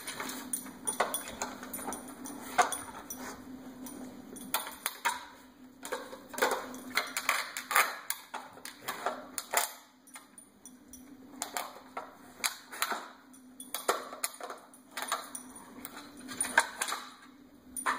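A dog working a plastic puzzle toy with its nose and paws: irregular clacks and rattles of the plastic parts being pushed and shifted, with a short lull about ten seconds in.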